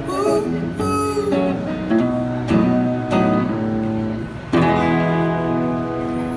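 Acoustic guitar strummed without singing, ending the song: a last chord is struck about four and a half seconds in and left ringing out.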